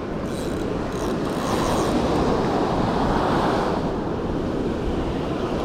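Surf washing up the beach, swelling to a peak midway and easing off, with wind rumbling on the microphone.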